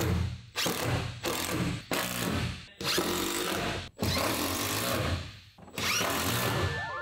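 Power drill driving screws into timber in a series of short bursts, about seven in all, each under a second or so, with the longest a little past the middle.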